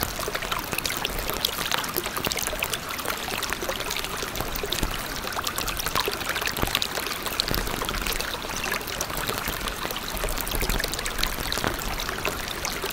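Steady sound of running water, like a stream, with many small splashing clicks.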